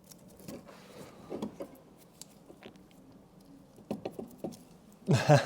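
Faint scattered clicks, taps and light scraping of hand tools and car suspension parts being handled, with a brief loud burst of voice near the end.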